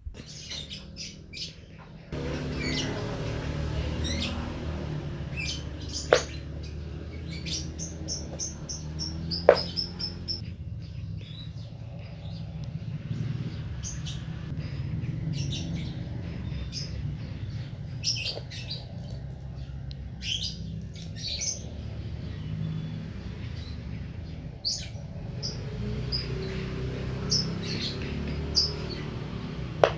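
A pet bird chirping and tweeting again and again, over a steady low hum that starts about two seconds in. Two sharp clicks stand out in the first third.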